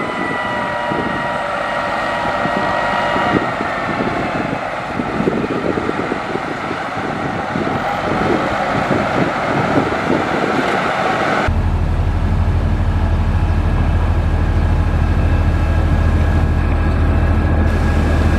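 Heavy diesel construction machinery, a motor grader, running under load: a rough engine rumble with a high whine that sags slightly in pitch. About eleven seconds in, the sound switches abruptly to a deeper, steady engine drone.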